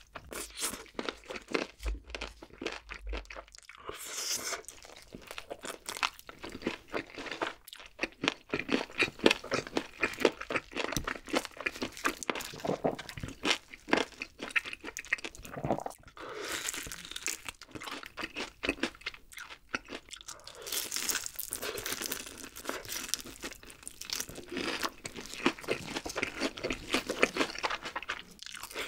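Close-miked crunching and chewing of fried chicken: crisp coated batter cracking in quick crackles between bites, with wet chewing in between.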